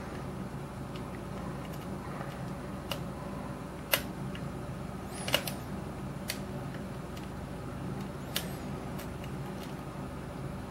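A few sharp metallic clicks and ticks of a lock pick working the pins of a brass Yale-style pin-tumbler lock under a tension wrench, over a steady low hum. The loudest click comes about four seconds in, another just after five seconds. This is single-pin picking of a heavily security-pinned cylinder, chasing counter-rotation and a false set.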